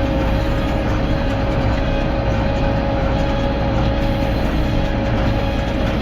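Tractor engine running steadily under load, with a constant high whine over a heavy low drone.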